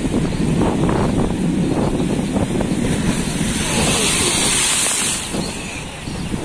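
Bono tidal bore surging past a riverbank: a steady rush of churning muddy water. A little past midway a wave breaks over the bank and throws up spray, a hissing splash lasting about a second and a half.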